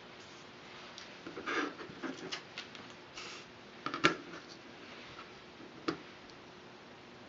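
Small handling sounds of craft work on a cutting mat: rustles and light taps as a green barley-straw strip, a ruler and a hobby knife are moved about. The loudest is a sharp tap about four seconds in as the ruler is laid over the strip, with a smaller tap near six seconds.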